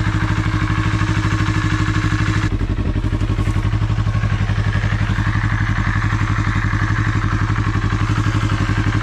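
2021 Yamaha R3's 321 cc parallel-twin engine idling steadily with fresh oil, its note shifting slightly about two and a half seconds in.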